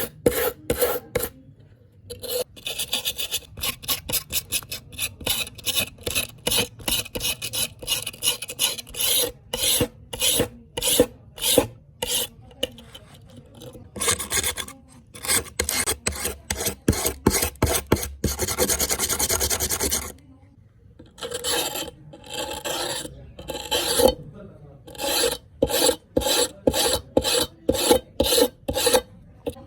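A steel knife blade being worked by hand with an abrasive: repeated back-and-forth rasping strokes, about two a second, with a few short pauses.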